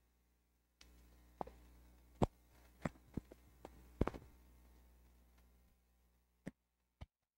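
A handful of sharp knocks and clicks, the loudest about two and four seconds in, as worshippers shift and a microphone is handled. Under them is a low steady hum from the sound system, which cuts in about a second in and fades out about two-thirds of the way through.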